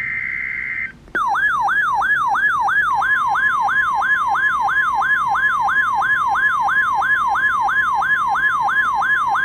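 Emergency Alert System tones: about a second of the warbling digital data burst that carries the alert's coded header, then a loud electronic alert siren, a rapid up-and-down wail about three sweeps a second, with a steady tone joining in about three seconds in.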